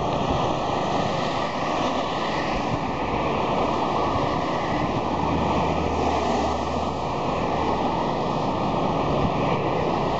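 Steady rumbling roar of an airliner's jet engines climbing out after takeoff, heard from the ground.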